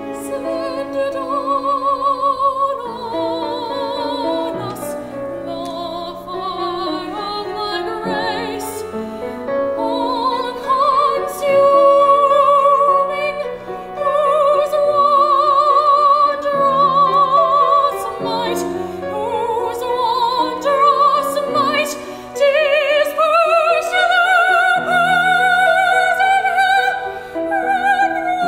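Classical art song: a soprano singing sustained, wide-vibrato phrases over grand piano accompaniment.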